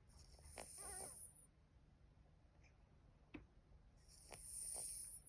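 A cat with cat flu breathing noisily through a congested nose: two long, hissy breaths about four seconds apart, the first with a wavering whistle in it. The sound is the sign of nasal congestion from a feline upper respiratory infection.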